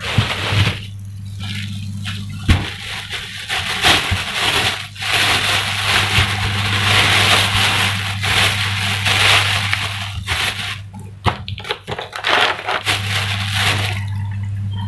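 A thin plastic bag crinkling and rustling steadily as it is handled, with many sharp crackles. A steady low hum runs underneath.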